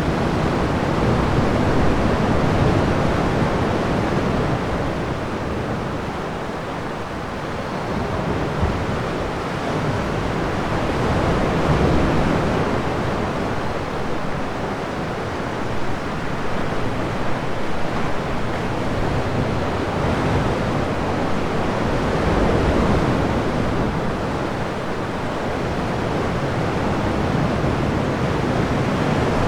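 Sea waves surging into a rock sea cave: a continuous wash of surf that swells and falls back about every ten seconds, with no single sharp break.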